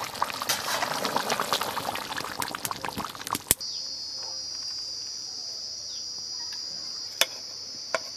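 Rohu fish curry boiling hard in a metal kadai, a dense bubbling and spitting that stops abruptly about three and a half seconds in. After that a steady high insect drone, with two sharp clicks near the end.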